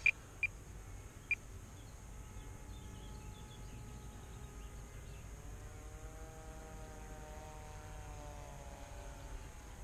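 Three short, high beeps in the first second and a half. Then a faint motor hum with a slowly wavering pitch comes in from about two seconds on, over low wind rumble.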